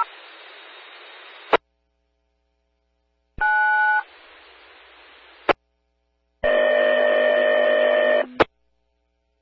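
Railroad radio scanner audio: short bursts of two-note touch-tone (DTMF) dialing keyed onto the channel, each followed by a second or so of squelch hiss that ends in a click when the transmission drops. Near the end comes a longer buzzy tone of nearly two seconds, with dead air between the bursts.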